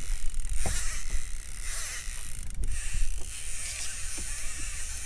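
A fishing reel being wound in against a hooked ling, a fine whirring and clicking of the reel, over a steady low rumble.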